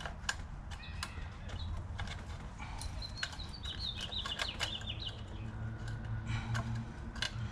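Small plastic clicks and taps as the fuel injector electrical connectors on a 2018 Ford Fiesta ST's fuel rail are worked loose one by one with a tool. A brief high chirping comes in around the middle, over a steady low hum.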